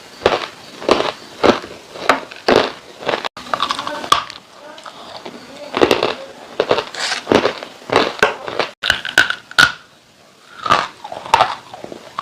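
Dry edible clay being bitten and chewed close to the microphone: a run of sharp, crackly crunches, easing off briefly about halfway through and again near the end.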